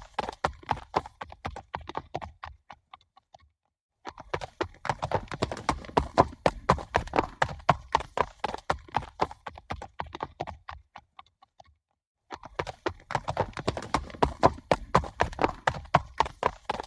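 Hoofbeats of galloping horses, a fast, dense run of hoof strikes. The hoofbeats fade away twice into a brief silence, and each time start again abruptly at full loudness.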